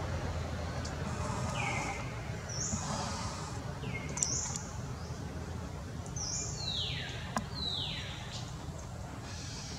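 Wild bird calling: a run of about six high, clear whistles, several sliding steeply down in pitch, the last two the longest. A steady low hum of background noise lies under them.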